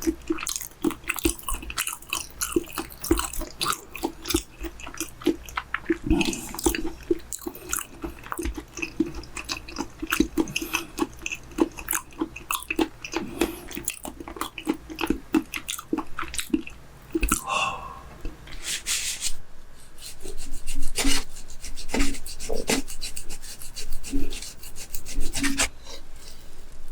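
Close-miked chewing of raw chicken breast, with wet mouth clicks in an uneven rhythm that grows denser and louder near the end.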